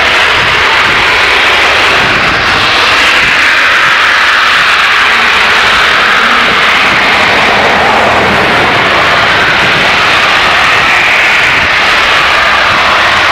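Natural gas venting from a compressor station's vent stack during a blowdown: a loud, steady rushing hiss that swells and eases slowly in pitch.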